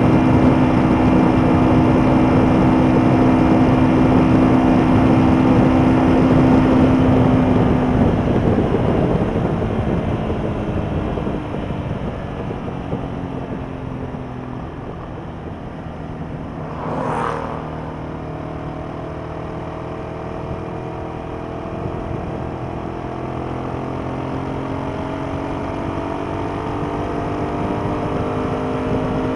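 Ducati Paul Smart 1000 LE's air-cooled L-twin engine at speed, recorded on the bike. It holds a steady high note, then eases off so the pitch falls and the sound quietens. After a brief whoosh about two-thirds of the way in, the pitch climbs slowly as it accelerates again.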